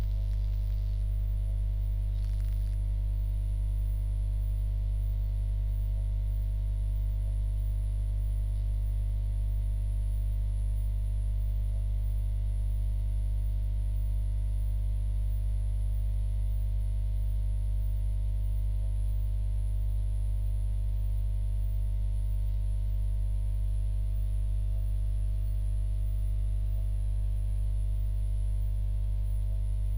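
Steady low electrical hum, mains hum on the recording, unchanging throughout, with a faint high-pitched whine above it.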